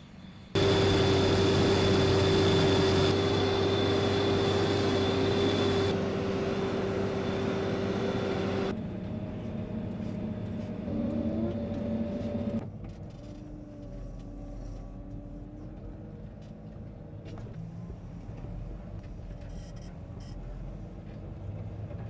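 Fendt Favorit 818's six-cylinder turbo diesel working hard pulling a four-furrow plough, loud and steady with a high whine over the engine. About two-thirds of the way through it drops to a quieter engine sound heard from inside the cab.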